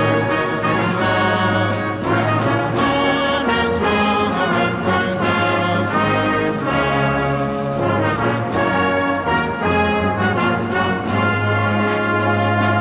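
Brass band playing a loud, full passage of a Christmas carol arrangement, with deep sustained bass notes under the brass and occasional percussion strokes.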